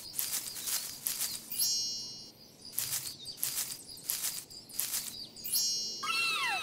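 A string of short hissy swishes, roughly two a second, over a faint steady high chirping, with a few quick falling whistle-like chirps near the end.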